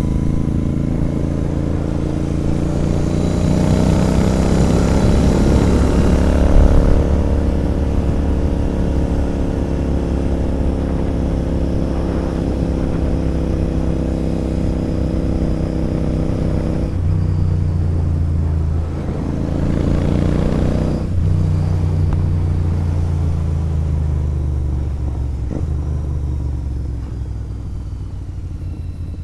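Royal Enfield Interceptor 650's parallel-twin engine running through a sport exhaust while riding. It pulls up through the revs over the first few seconds, then holds a steady cruise. About two-thirds through the pitch drops and climbs again, and it eases off near the end.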